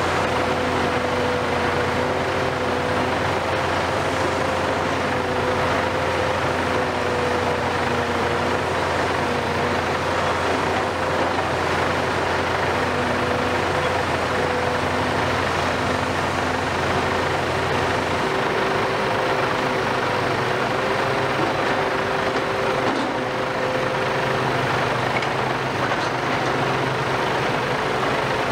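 Heavy Hitachi demolition excavators running steadily at work, diesel engine and hydraulics together, with a steady whine that wavers slightly in pitch. A low hum underneath drops away about two-thirds of the way through.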